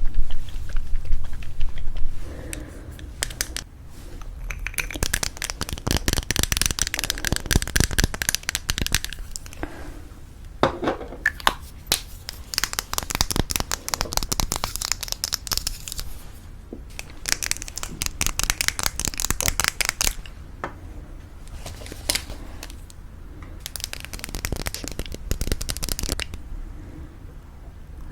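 Fingernails tapping and clicking rapidly on lipstick tubes, in bursts of a few seconds with short pauses between them.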